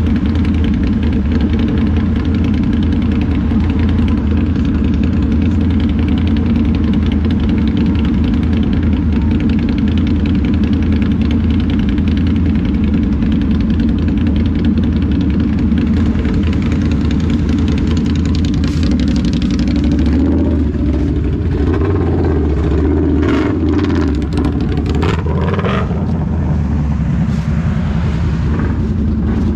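Can-Am ATV engine running steadily under way. About two-thirds of the way through, a few seconds of harsher, rougher noise rise over the engine, then the steady drone returns.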